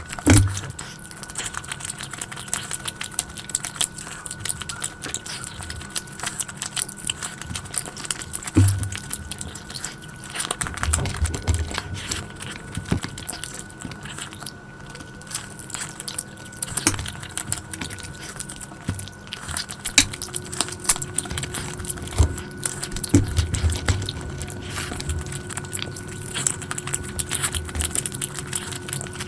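Close-miked eating sounds: chewing and biting, with many small clicks and clinks of food and dishes.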